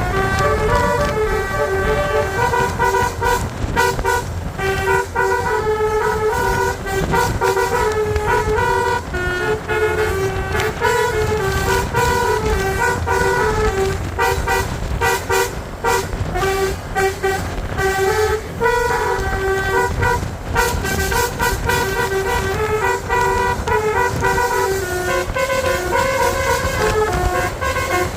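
Basuri telolet horn on a tour bus playing a continuous melody of short stepped notes, over a steady low rumble of vehicle noise.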